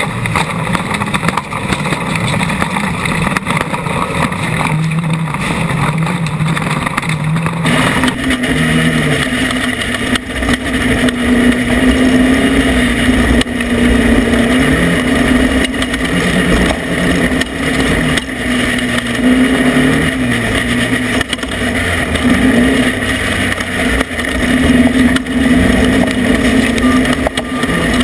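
Off-road race vehicle's engine running hard, its pitch rising and falling as the throttle works, under a constant noisy rush. The sound changes abruptly about eight seconds in, and the engine note becomes clearer.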